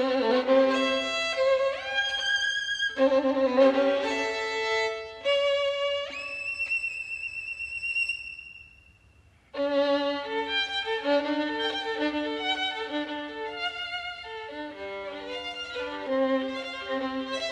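Background violin music: notes slide up into place, then one long high note fades away about eight seconds in. After a short pause the playing resumes with quicker notes, often two at a time.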